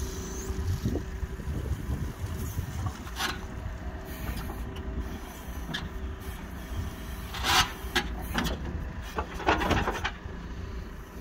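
JCB backhoe loader's diesel engine running steadily, with several short scrapes as the bucket works the wet clay at the pit edge.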